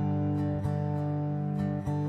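Background music: strummed guitar chords ringing on, with a new strum about once a second.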